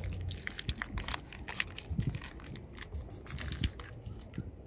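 Cats eating food, with irregular small clicks and crunches of chewing.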